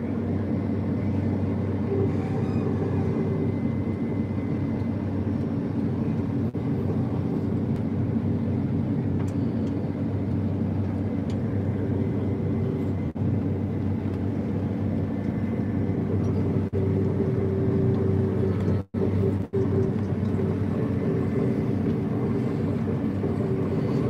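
Steady drone of a New Holland CR 8.90 twin-rotor combine heard from inside its cab while it harvests wheat: engine and threshing machinery running evenly with a steady hum. The sound drops out twice in quick succession about three-quarters of the way through.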